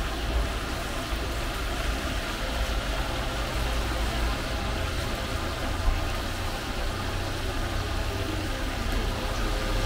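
Battered fish roe deep-frying in a wide pan of oil: a steady sizzle over a continuous low rumble, with a single brief knock about six seconds in.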